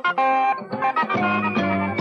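Fast-tempo dance music with quick runs of pitched notes, settling into held chords in the second half.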